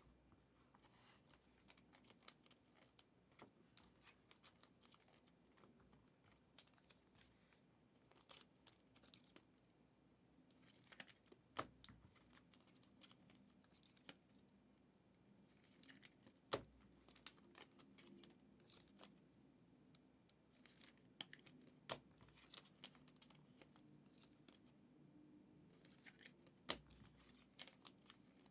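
Faint crinkling and tearing of trading-card pack wrappers and rustling of cards being handled, with a few scattered sharp clicks.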